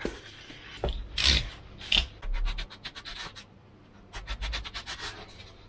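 Handling noise from a plastic motor mount and an EPP foam fuselage rubbing and scratching against each other under the hands. There is a louder scrape about a second in, and two runs of quick clicks in the second half.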